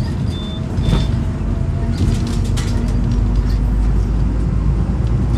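Volvo B9Salf articulated bus's nine-litre six-cylinder diesel running steadily, growing slightly louder. Two short high beeps come in the first second.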